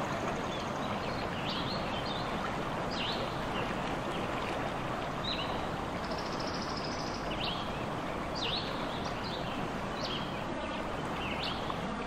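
Forest ambience: a steady rushing hiss like running water, with short, sharp high chirps from a bird repeating every second or two and a thin, high whistle held for about a second roughly halfway through.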